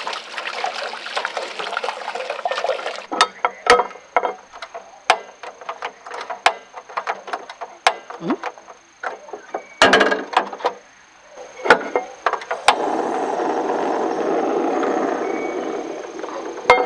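Kitchen-style cooking sounds: a spell of rushing water, then a run of sharp clicks and knocks of utensils against cookware, and near the end a few seconds of steady pouring water.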